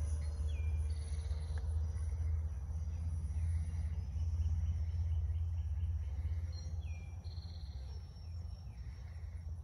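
Low rumble of wind buffeting the microphone, with a faint high steady whine above it. Two short bird calls, one near the start and one about two-thirds of the way in, each dropping in pitch and then holding.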